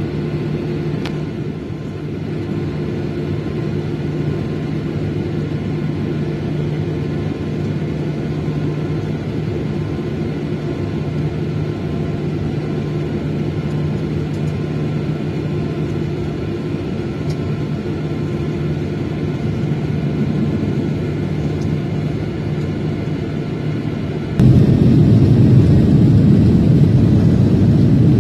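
Jet airliner's engines heard from inside the cabin, a steady hum with a low, even tone. About 24 seconds in, the sound jumps suddenly to a much louder low rumble.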